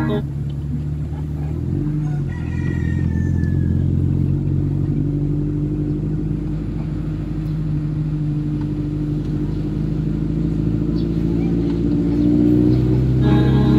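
Car engine and road noise heard from inside the moving car's cabin. A rooster crows once about two seconds in.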